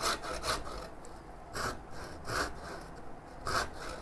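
Back saw cutting across the grain of a small wooden blank in about five rasping strokes. These are the first kerf cuts for a groove that will be chiselled out.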